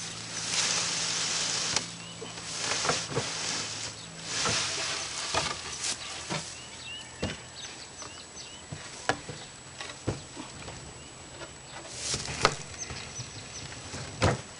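Dry loose hay rustling and crackling as it is stuffed and pressed down into a homemade box hay baler, in several bursts, with scattered knocks from the wooden box and plunger.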